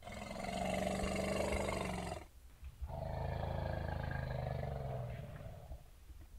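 A large animal roaring: two long roars, the first breaking off about two seconds in and the second following after a brief pause.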